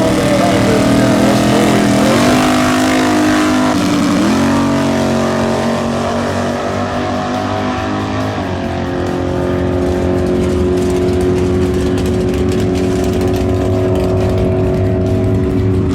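Drag race car engine running hard, its pitch stepping up about 2 seconds in, dipping and climbing again about 4 seconds in, then dropping and holding steady from about 8 seconds in.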